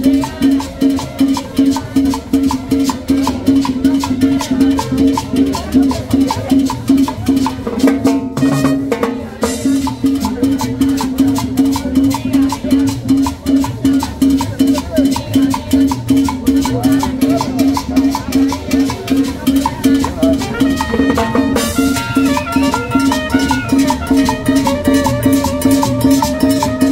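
Live cumbia band playing: timbales and cymbal keep a steady, fast beat over a held low note, with a short drop in the percussion about eight seconds in. A trumpet melody joins near the end.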